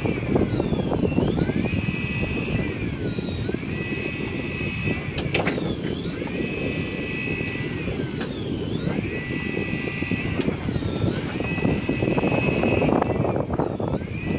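Fishing boat's engine running, with wind and water noise, and a high whine on top that dips in pitch and climbs back about every two and a half seconds.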